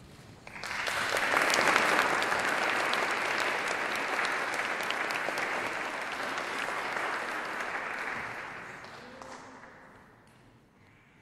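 Audience applauding: the clapping swells up about half a second in, holds, and dies away over the last few seconds.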